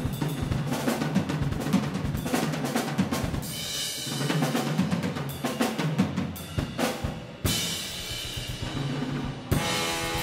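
Jazz big-band recording in a drum-led passage, the drum kit hitting snare and bass drum busily under short ensemble chords.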